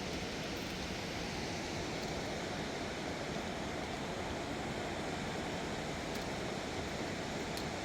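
Steady rushing of a river swollen with floodwater after heavy rain.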